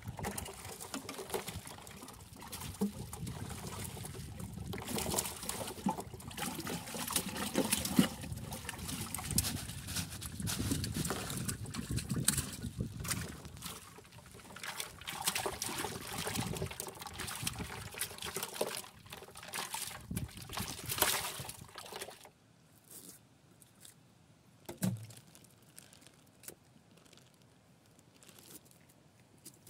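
Water splashing and trickling as gutted rainbow trout are moved in a bucket of bloody water, for about twenty seconds. Then it goes much quieter, with a few soft knocks.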